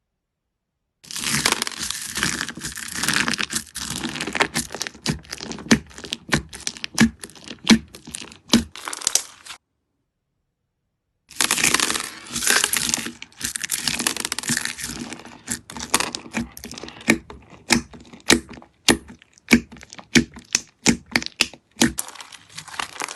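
Slime being squeezed and stretched by hand, crackling and popping in quick sharp snaps. Two passes, broken by a silent cut of about two seconds near the middle.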